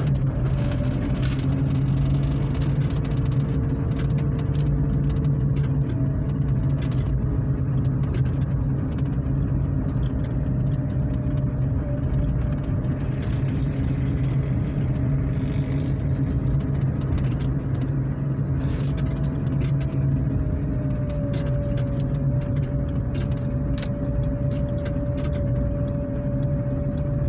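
Car driving, heard from inside the cabin: a steady engine and road hum with a faint thin whine above it.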